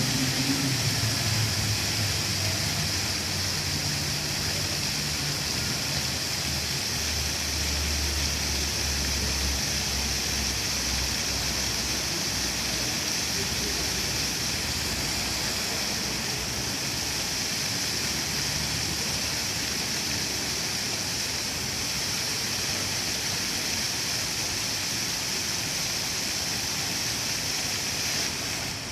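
Water fountain splashing steadily, a constant bright rush of falling water. A low hum sits under it for about the first ten seconds, then fades out.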